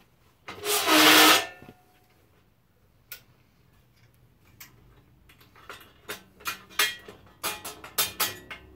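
A short, loud breathy rush about a second in, then light clicks and taps of small hardware and hand tools being handled and fastened on a workbench. The taps come quick and close together in the last three seconds.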